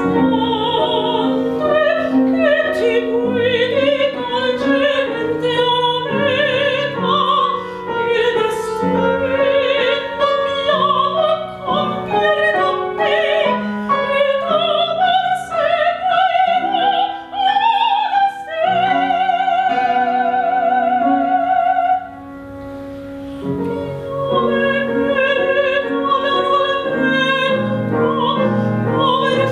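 A woman singing an operatic aria with wide vibrato, accompanied by a grand piano. About two-thirds of the way through she holds one long note, then the music drops briefly quieter before voice and piano resume.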